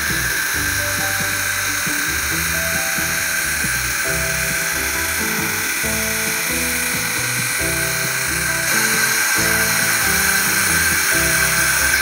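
Gaggia Anima XL's automatic milk frother running as it steams and froths milk into a pitcher, a steady high-pitched hiss and whine, getting a little louder about nine seconds in. Background music plays underneath.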